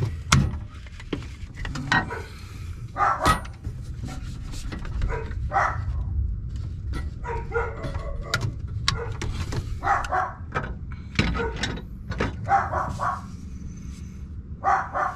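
A dog barking repeatedly at someone nearby, separate barks about every second or two.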